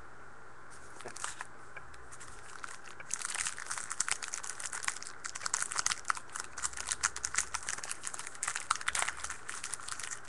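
Foil trading-card pack wrapper being torn open and crinkled by hand: a few crinkles about a second in, then dense, irregular crackling from about three seconds in.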